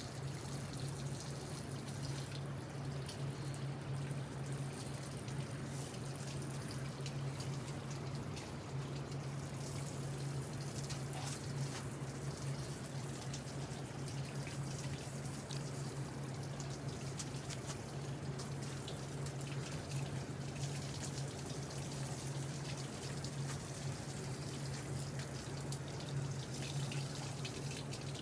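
Water running and splattering steadily, with a steady low hum underneath.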